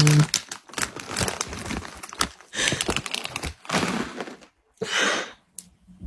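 Rustling and rubbing against a phone's microphone as it is handled, in several irregular bursts, with a brief low tone right at the start.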